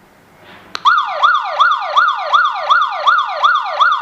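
Electronic alarm siren of a Tuya Wi-Fi security system going off after it has been armed, the armed system going into alarm. It starts with a click about three-quarters of a second in, then sounds a loud, rapid falling sweep repeated about three times a second.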